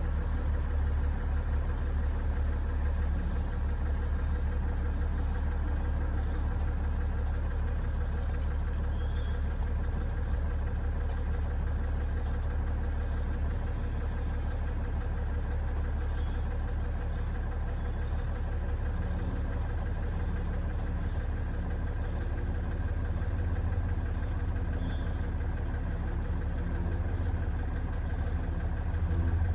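BMW M57 straight-six diesel idling steadily, an engine with an unexplained knock whose cause the owner is chasing through the injector correction values.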